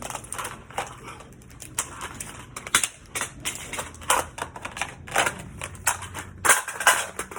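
Irregular clicks and clacks of gun handling during a rifle-to-pistol transition and reload drill: weapons, magazines and holster knocking and snapping, several strikes a second, with the loudest clacks about three seconds in and near the end.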